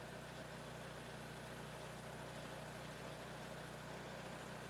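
Portable bandsaw sawmill's engine running steadily and faintly while the saw head is pushed along a log, its silver-soldered blade back in service.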